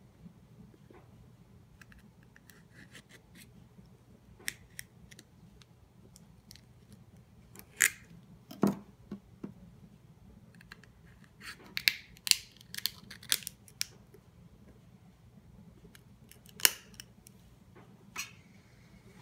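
Kitchen knife blade scraping and clicking against a clam's shell as it is pried and twisted to force the shell open: scattered sharp clicks and short scrapes, bunched in a few clusters in the middle, with quiet gaps between.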